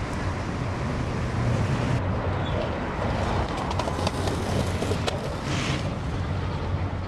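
Street noise with traffic. About two seconds in the sound changes to a skateboard rolling on pavement, with several sharp clicks over the next few seconds.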